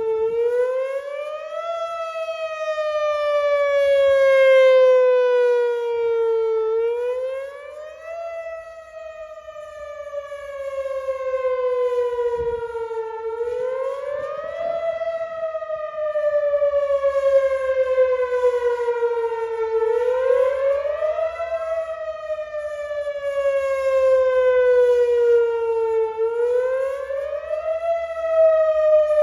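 Whelen WPS-4004 electronic outdoor warning siren sounding a wail. Its tone climbs quickly in about a second and a half, then falls slowly over about five seconds, repeating roughly every six and a half seconds, and swells and fades in loudness.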